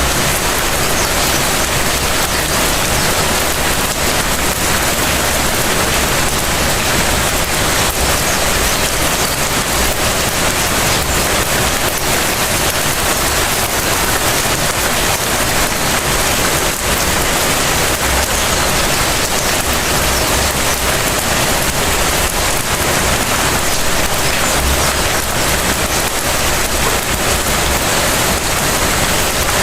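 Steady rain falling and pattering on surfaces, with many small drop ticks and a low rumble underneath.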